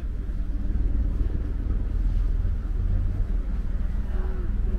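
Outdoor crowd ambience: a steady low rumble with faint voices, one rising and falling near the end.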